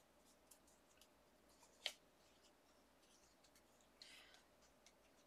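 Near silence with faint handling of a small paper die-cut piece: a few light clicks, one sharper tap about two seconds in, and a brief rustle about four seconds in.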